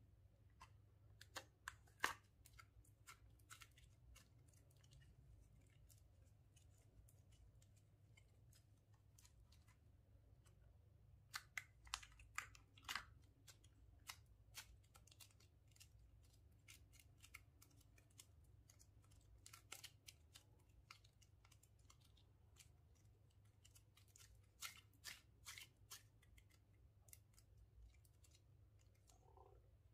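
Faint, scattered clicks and crackles from fluffy slime and foam beads squeezed and pressed by fingers in a glass bowl, coming in a few short clusters with near silence between them.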